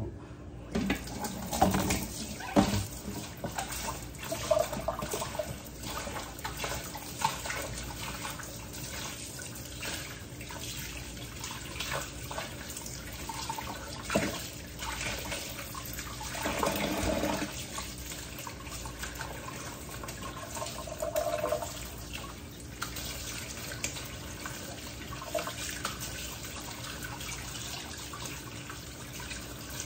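Kitchen tap running into a sink, starting about a second in, while raw chicken breast pieces are rinsed under the stream by hand. Occasional knocks and clatters of containers at the sink.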